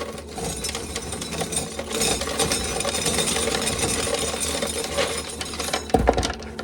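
Corn sheller stripping an ear of dried corn, a dense clattering of kernels that ends about six seconds in with a couple of heavy knocks. An old fan hums steadily underneath.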